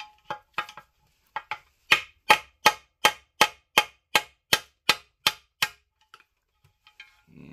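Hammer striking a steel drift against a stuck needle roller bearing in a Spicer 4360 transaxle case to tap it out: a few light taps, then a steady run of about eleven sharp metal-on-metal blows, about three a second, that stops suddenly.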